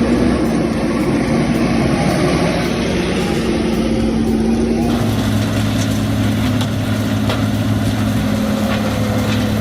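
Heavy machinery's diesel engine running steadily, with an abrupt change about halfway through to a lower, steady drone.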